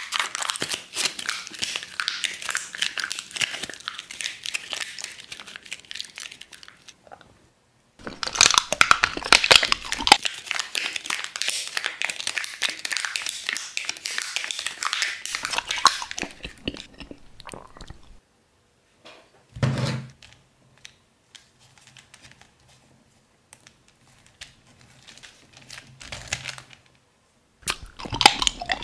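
Clear plastic wrap crinkling and crackling as it is crumpled by hand, in long stretches with short pauses, thinning out after the middle. A single short thump about twenty seconds in.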